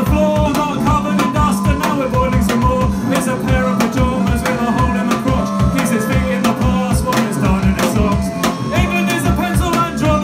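Live indie-punk band playing: electric guitar and held keyboard-like notes over a steady drum beat.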